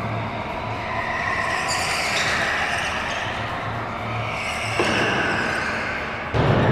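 Music with a steady beat over the whine of go-karts driving around the track, swelling as karts pass twice, with a sudden loud bang near the end.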